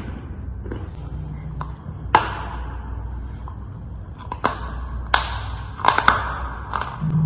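Dry chalk crunching and snapping. A few sharp cracks, each trailing off in a crumbly hiss, come about two seconds in and again around five and six seconds, with smaller clicks between them.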